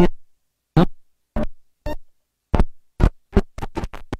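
Turntable performance: a record sample chopped into about a dozen short, irregular fragments, each cut off sharply into dead silence, cut in and out at the DJ mixer.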